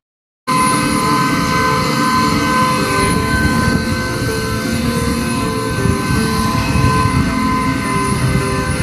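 Steady jet-aircraft whine on an airport apron: a constant rush of engine noise with two steady high tones, starting abruptly about half a second in.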